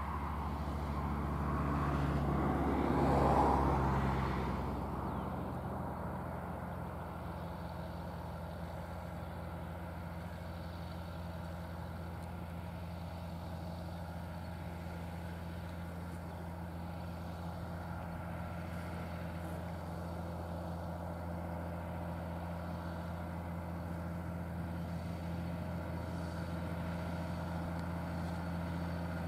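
John Deere 7920 tractor's six-cylinder diesel engine running steadily under load while pulling a trailed field sprayer. A louder swell of noise rises and fades over a couple of seconds near the start.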